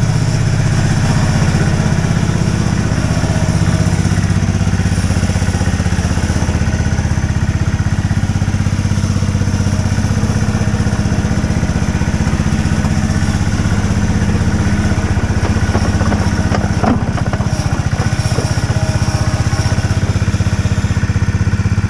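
A small engine running steadily, with a few brief clanks about three-quarters of the way through.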